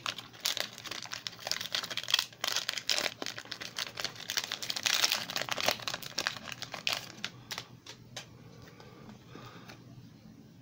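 Foil wrapper of a Pokémon trading card booster pack crinkling and tearing as it is torn open by hand. After about seven seconds the crinkling gives way to a few light clicks and rustles as the cards are handled.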